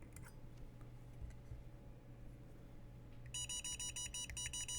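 Portable battery spot welder beeping: a fast run of short electronic beeps begins about three seconds in, several a second, as its power setting is stepped up. Before that only a low steady hum.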